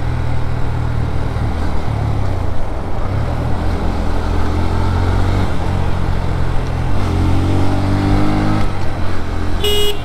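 Bajaj Pulsar NS125's single-cylinder engine running on the move. About seven seconds in, a rising engine note climbs for a couple of seconds. A vehicle horn toots briefly near the end.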